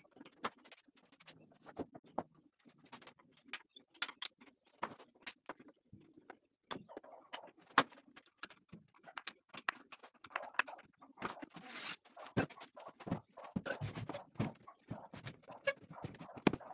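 Irregular clicks, knocks and scrapes of hand work, coming thicker in the second half, with one short harsh scrape a little past the middle.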